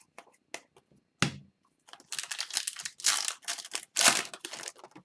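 Hockey trading cards being handled and slid against one another: a few light clicks, then about three seconds of dense rustling and clicking.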